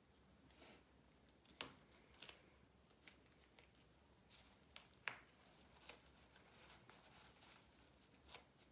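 Faint rustling and a few small sharp clicks of gloved hands tearing and pressing medical tape onto a gauze and ABD dressing pad; the sharpest clicks come about one and a half and five seconds in.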